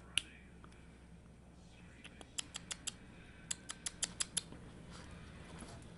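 Quick light clicks of a beagle–Japanese chin mix puppy's toenails tapping on hard surfaces as she shifts about on her hind legs. There is one click at the very start, then a run of about five clicks around two seconds in and another of about seven around four seconds in.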